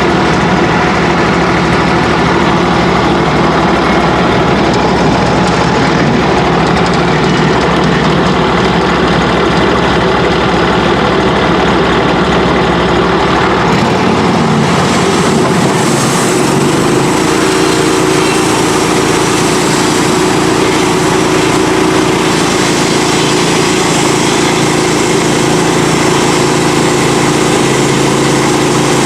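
Engine of a Norwood HD38 portable bandsaw mill running steadily under power, with a shift in its tone about halfway through.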